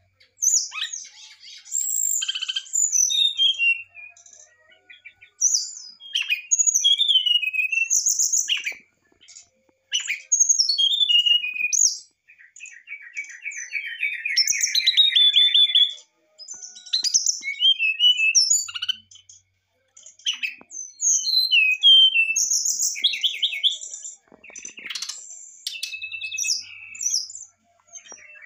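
Brown-chested jungle flycatcher (sikatan rimba dada coklat) singing in short bursts of varied high whistles and trills separated by brief pauses, with one long fast trill about halfway through.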